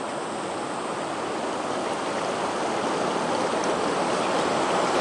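Rushing water of a fast river rapid: a steady, even rush that slowly grows louder.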